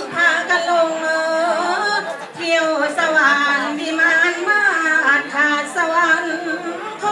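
Korat folk song (pleng Korat) sung by one voice without accompaniment: long held notes with a wavering vibrato, gliding between pitches with short breaks.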